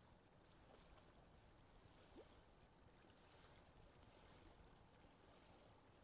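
Faint lake ambience: small waves lapping gently at the shore under a low rumble of wind. About two seconds in there is a brief, faint rising note.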